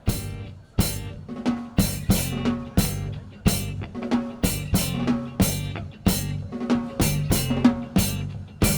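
Live reggae band starts abruptly with drum kit, bass drum, snare and rimshots, playing in a steady rhythm over a low bass line, without vocals.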